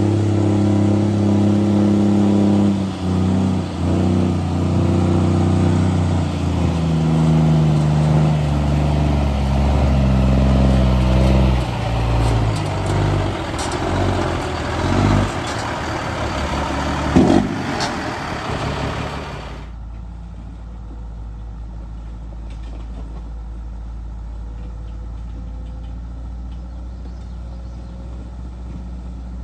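Diesel engine of working heavy equipment running under changing throttle, its pitch stepping up and down, with a few knocks and clanks. About two-thirds of the way through, the sound cuts abruptly to a quieter, duller steady engine rumble.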